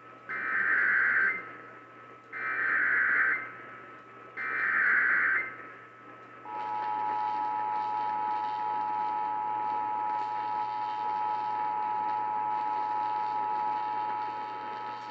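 Emergency Alert System activation heard over AM radio. First come three bursts of SAME header data, each about a second long and two seconds apart, encoding the severe thunderstorm warning. After that, the two-tone attention signal comes on about six seconds in and holds steady. A steady whistle runs underneath.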